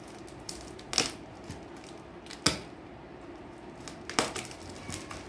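Packing tape and cardboard being cut and pulled open on a parcel: three sharp cracks of tape and card giving way, about a second and a half apart, with smaller scratches and ticks between them.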